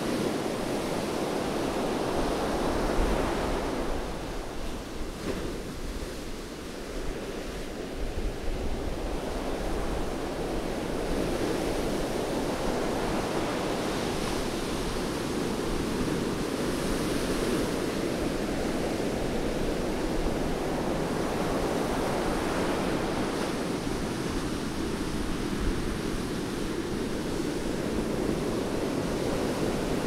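Rough sea surf: waves breaking and washing up a sandy beach in a continuous wash of noise that swells and eases, dropping back for a few seconds about four seconds in before building again.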